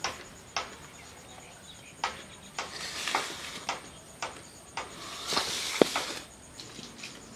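Raw bitter gourd being broken apart by hand, the seeds and pith pried out with the fingers: a string of crisp snaps and clicks about every half second to a second, with a couple of brief scratchy crackles around the middle and near the end.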